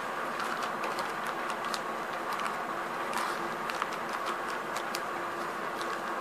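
Plastic packaging crinkling in the hands as sunglasses are unwrapped: a scattered string of short, sharp crackles over a steady background hiss with a faint hum.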